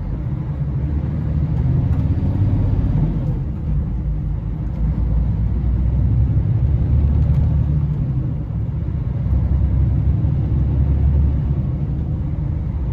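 Steady low rumble of a Scania 113 truck's diesel engine and tyres on the road, heard from inside the cab while cruising, swelling a little now and then.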